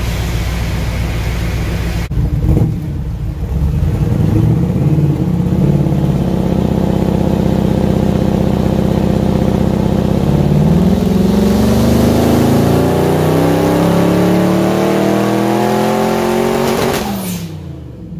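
Twin-turbocharged 347 cubic-inch stroker V8 of a 1967 Mustang under load on a hub dyno, holding a steady higher rpm, then making a pull: the engine note climbs steadily for about six seconds before the throttle is lifted and it falls away near the end.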